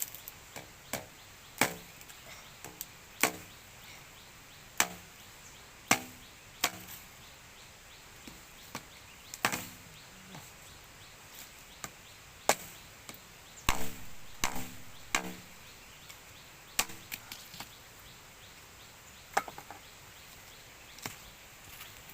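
Irregular sharp chopping strikes, about one every one to two seconds with a quicker run of them midway, some with a short ringing tone after the hit.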